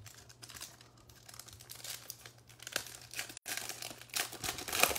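Foil wrapper of a trading card pack crinkling and tearing as it is ripped open by hand and the cards are pulled out, in many short rustles with the loudest near the end.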